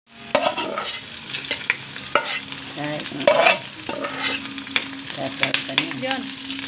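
Chopped onion and garlic sizzling in oil in a frying pan while a metal spoon stirs and scrapes against the pan with sharp clicks. About three seconds in, a louder scrape as more ingredients are spooned from a metal bowl into the pan.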